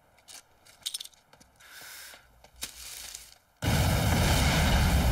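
A few faint clicks and knocks, then, about three and a half seconds in, a large explosion goes off with a sudden loud blast. It continues as a sustained roar of fire and debris.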